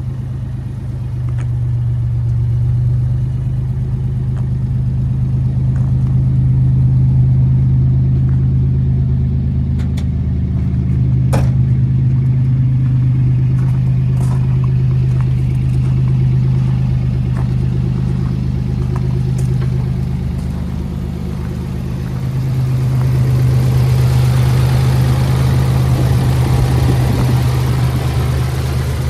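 1993 Toyota T100's 3.0-litre V6 idling steadily. Near the end it grows louder and more clattery, heard close at the open engine bay.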